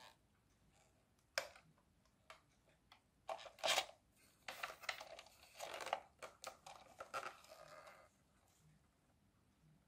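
Handling noise from hands on a plastic toy tractor: a sharp click, then after a pause a run of rustling, crinkling scrapes and clicks lasting about five seconds, loudest near the middle.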